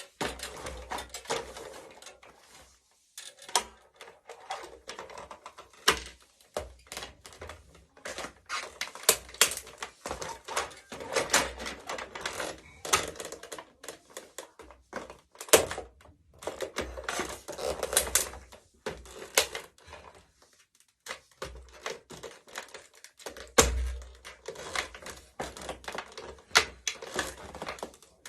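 Plastic remote-controlled toy car creaking, clicking and cracking as it is crushed under high heels, in dense irregular runs broken by a few short pauses, with a couple of louder knocks.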